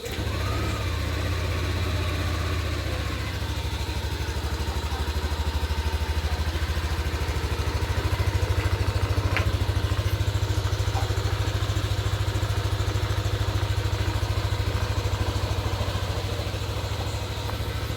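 A 2021 Yamaha Aerox scooter's single-cylinder engine starts up suddenly and then idles steadily.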